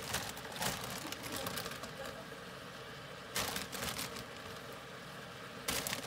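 Stir-fry vegetables sizzling steadily in a hot cast-iron skillet. Three short bursts of plastic-bag crinkling and rustling come as chopped kale is shaken out onto the pan: about half a second in, around the middle, and near the end.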